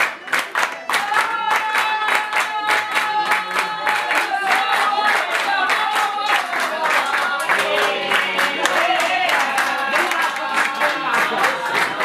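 Button accordion playing a lively folk dance tune, with a crowd clapping a quick, steady beat along with it and a melody line that bends in pitch.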